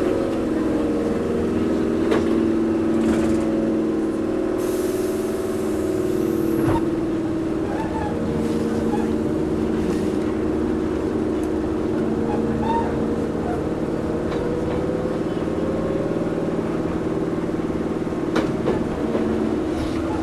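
Interior running sound of a Toyohashi Railway 1800-series (ex-Tokyu 7200) resistance-controlled electric train pulling away after a station stop: rumble of wheels and motors with a set of steady hums, some of them slowly rising in pitch late on. A brief hiss about five seconds in.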